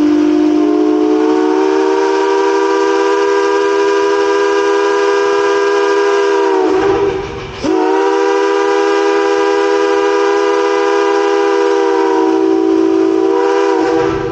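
Steam whistle on a steam-powered crane blowing two long blasts, of about seven and six seconds, with several tones sounding at once. The pitch sags as each blast closes off.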